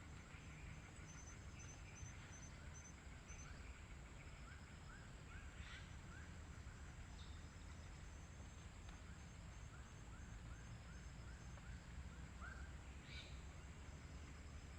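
Faint birdsong at a forest edge: a bird repeats short chirps in quick runs of several a second, with a thinner, higher chirping series above it. A steady high whine runs underneath.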